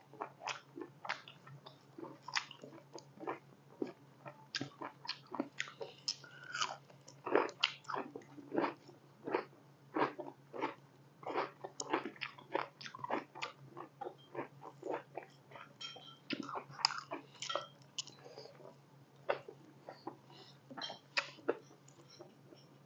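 Close-up chewing and mouth smacking while eating pork curry and rice: irregular wet clicks and smacks, several a second, over a faint steady low hum.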